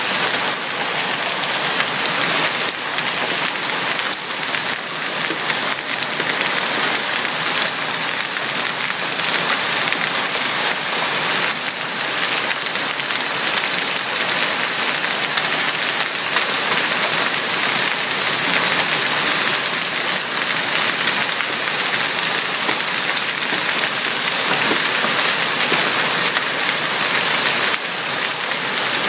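Large hailstones, golf ball to baseball sized, falling with rain in a steady, dense clatter of impacts.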